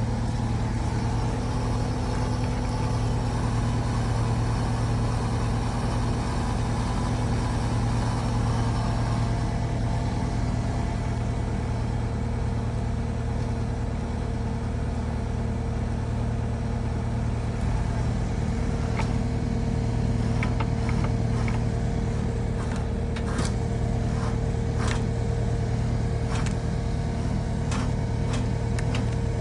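Skid steer engine running at a steady speed while it drives a hydraulic winch. From a little past halfway, irregular sharp clicks and snaps sound over the engine.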